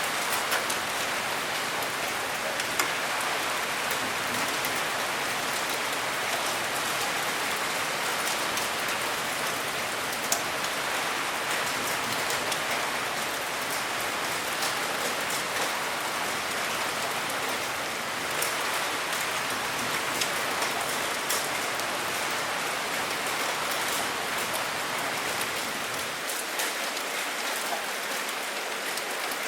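Steady rain falling: an even hiss with many scattered individual drops ticking sharply through it.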